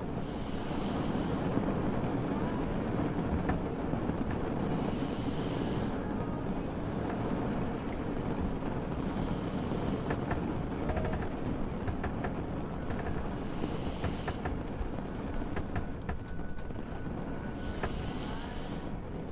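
Layered ambience of steady rain and the low rumble of a boat. A soft higher swish comes back about every four to five seconds.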